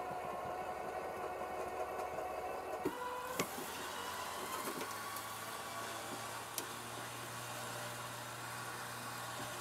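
Harbor Freight Badlands Apex 12,000 lb electric winch motor whining under heavy load as it drags an old truck body out of the ground. Its pitch shifts about three seconds in, and three sharp cracks come from the wreck giving way.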